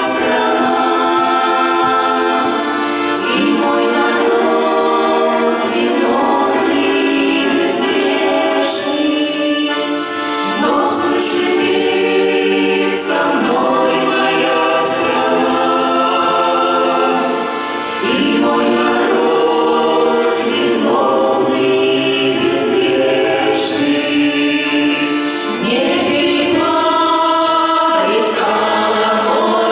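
Vocal ensemble singing a song in several parts, holding long chords in phrases with short breaks between them.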